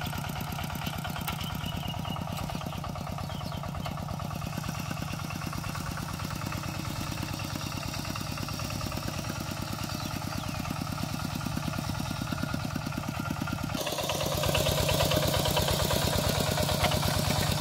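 Kubota RT120 walking tractor's single-cylinder diesel engine running steadily with an even, fast chug while it pulls a disc plough through dry soil. About three-quarters of the way through it turns suddenly louder and clearer.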